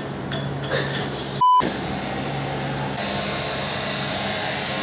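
Handheld hair dryer blowing steadily. A short electronic beep cuts in about one and a half seconds in.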